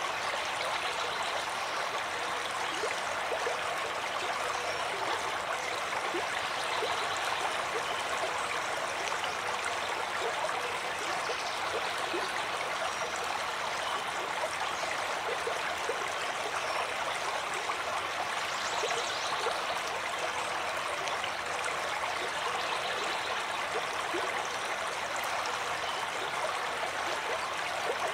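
Lake water splashing and lapping in small choppy waves, a steady rushing wash with small scattered splashes.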